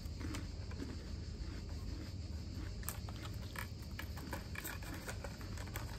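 Chewing and crunching a crisp cream-filled rolled wafer stick (YBC Picola), heard as scattered small crackles and clicks over a steady low hum.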